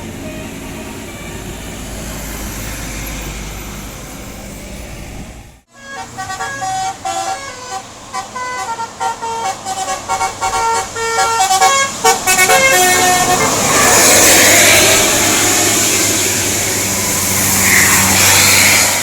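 Bus telolet horn playing a quick tune of short, stepping notes, then giving way to a loud rushing noise for the last five seconds. Before it, a steady low rumble cuts off abruptly about five and a half seconds in.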